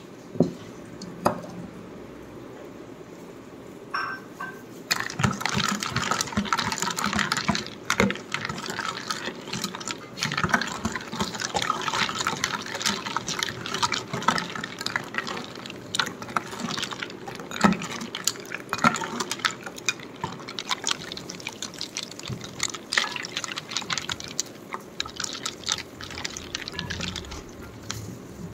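Liquid being poured and splashing in a container, with many small clicks and knocks. A few sharp knocks come first; the splashing starts about five seconds in and eases off near the end.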